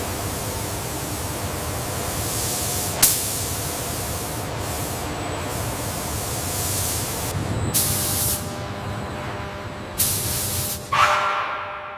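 Paint spray guns on robotic arms hissing steadily as they spray an aircraft fuselage, with a brief louder spurt about a quarter of the way in and two longer louder spurts later. A last surge near the end fades away.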